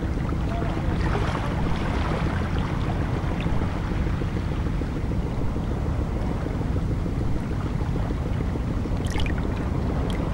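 Steady low rumble of sea and wind ambience, with no distinct waves breaking, and a few faint ticks near the end.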